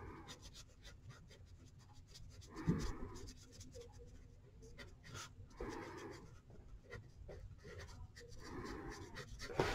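Faint scratching of colouring strokes on paper, coming in a few short patches of quick back-and-forth shading.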